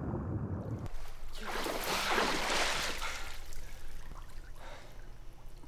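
Water rushing and sloshing: one swell of wash builds about a second in, peaks around two seconds and fades, with fainter sloshing later.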